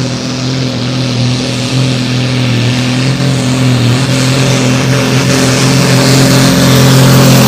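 Turbocharged diesel engine of a Super Sport class pulling tractor running steadily as it gets ready to pull. It grows gradually louder over the last few seconds, with more hiss coming in on top.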